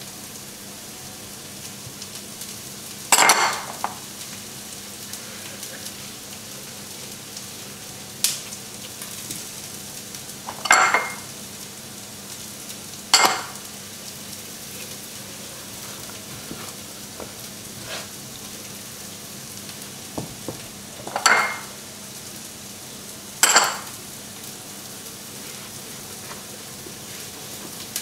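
Chorizo, onion and garlic sizzling steadily in a frying pan, with about six short, sharp handling noises scattered over it.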